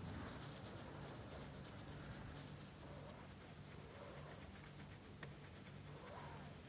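Faint, rapid scratching of a stiff-bristled stencil brush rubbed back and forth over a plastic stencil onto fabric, getting busier about two seconds in, over a low steady hum.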